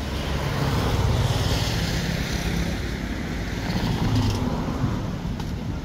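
A motor vehicle passing, its low engine rumble swelling about a second in and fading away near the end.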